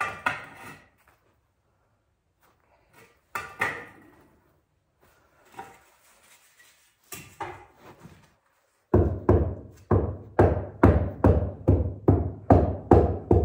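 Short scraping and knocking sounds of bricks being set in mortar by hand, a handful of separate strokes. About nine seconds in, background music with a steady thumping beat, about two beats a second, comes in and is the loudest sound from then on.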